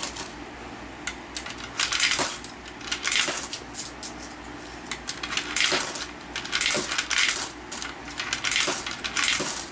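One-peso coins dropped one at a time through an Allan universal coin acceptor, each clinking through the mechanism and landing in a cardboard box below, about one every second or so. The acceptor is being calibrated, sampling each coin to learn what a one-peso coin looks like.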